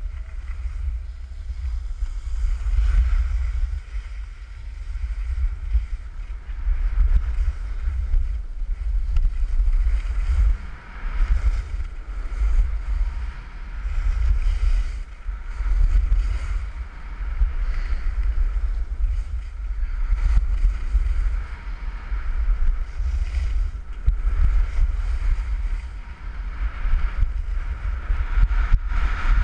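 Wind buffeting the microphone of a camera carried by a downhill skier: a heavy low rumble that surges and drops every second or two, over a steady hiss and scrape of skis on packed snow.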